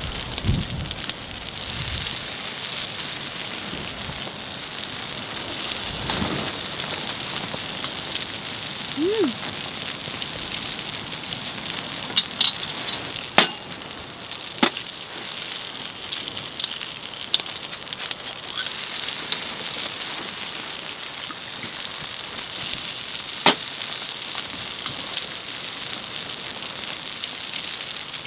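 Potatoes sizzling in a pan: a steady hiss throughout, broken by a few sharp clicks, most of them in the middle.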